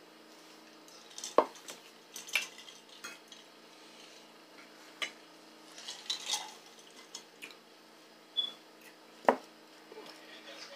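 Metal cutlery clinking and scraping against plates and glass bowls during a meal, in scattered single clinks, the loudest about a second and a half in and again near the end.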